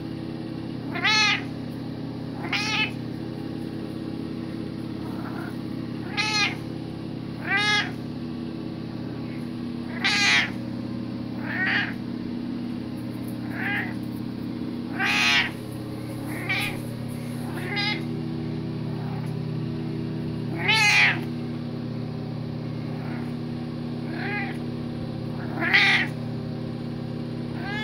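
House cat meowing over and over, a short meow every second or two, each rising and then falling in pitch, begging for the bathroom faucet to be turned on. A steady low hum runs underneath.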